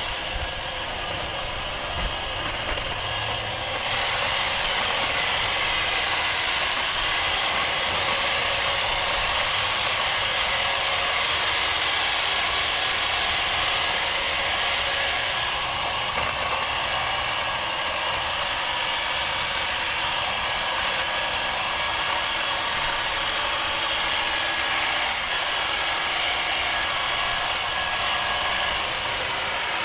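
A power tool's motor running steadily for the whole stretch, getting a little louder about four seconds in.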